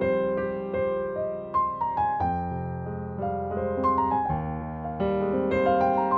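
Background music played on piano or electric piano: a gentle melody of struck notes over sustained chords.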